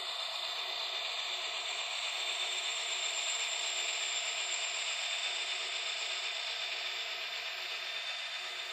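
Model diesel locomotive (MTH SD70M-2) running along the track: a steady mechanical whirring of its motor, gearing and wheels on the rails, with a thin high whine. It eases off slightly near the end as the locomotive moves off.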